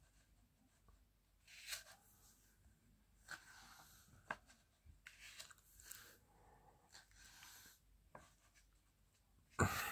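Paper pages of a large printed book being turned and brushed by hand: faint rustles and slides every second or so, with one small sharp tick about four seconds in.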